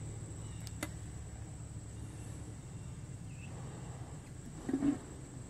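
Quiet outdoor background with a steady low hum, and a single sharp click about a second in as the differential cover and its bolts are handled; a brief faint sound follows near the end.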